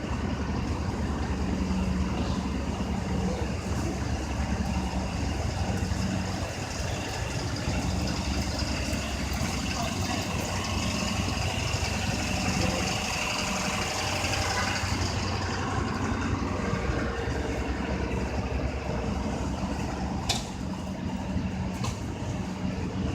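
Large vehicle engine idling steadily, the low rumble of a truck-sized emergency vehicle standing by. A single sharp click about twenty seconds in.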